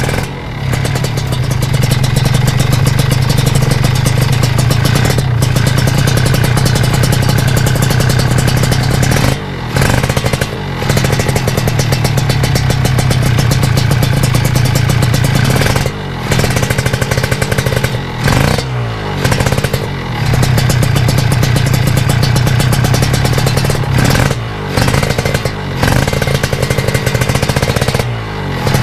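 Kawasaki Ninja RR 150's two-stroke single-cylinder engine running loud through an aftermarket CMS exhaust. The revs drop off and pick up again several times, as when the throttle is closed and reopened.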